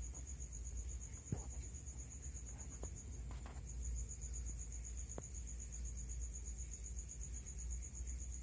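A cricket trilling steadily in a rapid, unbroken pulse at a high pitch, over a low rumble, with a few faint clicks.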